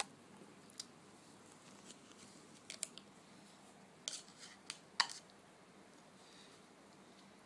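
Light clicks and clinks of toy metal cookware being handled: tongs and utensils tapping and knocking against each other. There are a few scattered sharp ticks, bunched near the middle, with the loudest about five seconds in.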